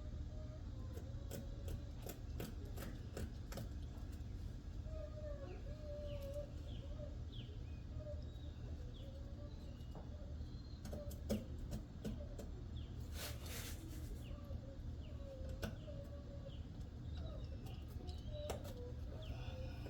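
Birds chirping and calling, short falling chirps mixed with lower wavering calls, over a steady low rumble. Scattered light clicks run through it, with a short hiss about thirteen seconds in.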